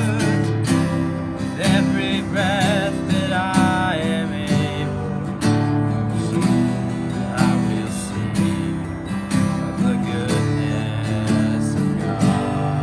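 Acoustic guitar strummed steadily through a worship song, with a wavering melody line over it during the first few seconds.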